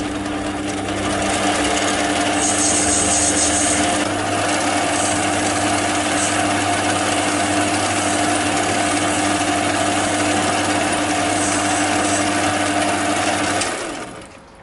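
Sieg C2 mini lathe running steadily, its motor and spindle giving a steady hum with a high hiss on top while the tool cuts a brass part. The machine stops near the end.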